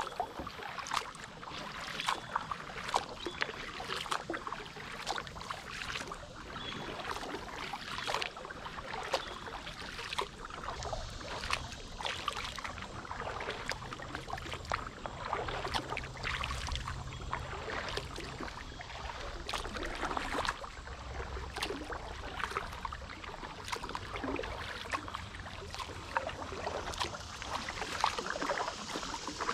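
A double-bladed kayak paddle stroking through calm water: blades dipping and splashing, with drips and small sharp knocks.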